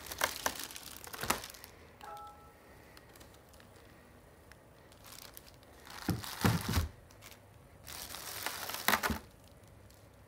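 Packaging being crinkled and torn while things are taken out of a collectible's box, in three bouts of rustling: in the first second or so, about six seconds in, and again about eight seconds in.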